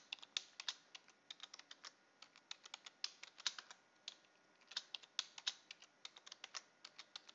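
Typing on a computer keyboard: quick runs of keystroke clicks as a password is entered, with a short pause about four seconds in, then a second run as the password is typed again to confirm it.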